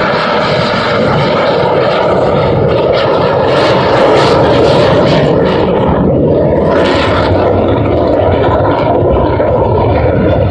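Loud, steady jet noise from a US Air Force Thunderbirds F-16 fighter flying an air-show pass, heard through a phone microphone.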